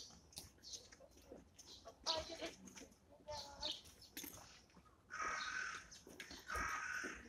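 Eurasian tree sparrows chirping in short, scattered notes, with two longer, rough calls of about a second each near the end.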